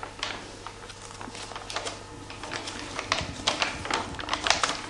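Stiff pages of a thick photo scrapbook being handled and turned by hand: paper rustling and crackling in short clicks, getting busier about three seconds in as a page is flipped over. A low steady hum runs underneath.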